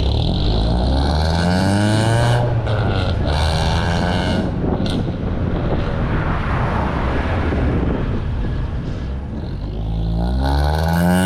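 Scion tC engine running through its new exhaust, revving up and falling back several times.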